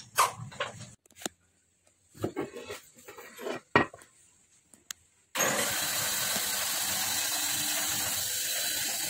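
Scattered clicks and knocks as a motorcycle steering stem and triple clamp are handled, then, about five seconds in, a loud steady hissing noise starts abruptly and keeps going.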